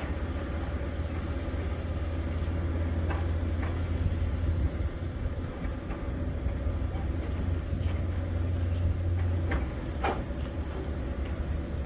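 Low steady rumble of an idling truck engine, with a few short knocks, the loudest two about half a second apart near the end.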